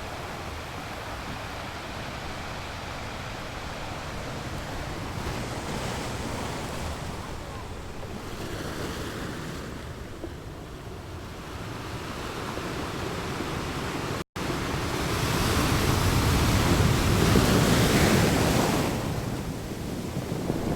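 Sea waves breaking and washing in, the surf rising and falling. Near the end the sound cuts out for an instant, then a louder wave surges in for a few seconds.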